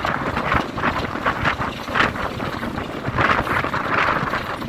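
Wind rushing past and buffeting the microphone, over the steady running of a Class 33 diesel locomotive's Sulzer eight-cylinder engine and its wheels on the track.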